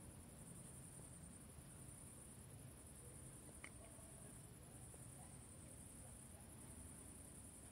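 Faint, steady high-pitched chirring of crickets, with one soft click a little past halfway.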